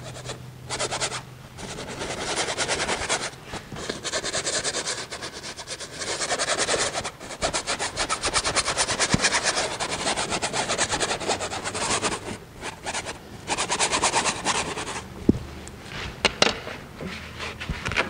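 Paintbrush scrubbing paint onto a canvas in fast back-and-forth strokes, in bursts of a few seconds with short pauses between them. A few sharp taps come near the end.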